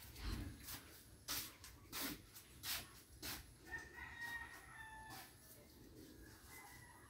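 A rooster crowing faintly, a long call starting about halfway through and another beginning near the end. Before it, a string of sharp taps comes roughly twice a second.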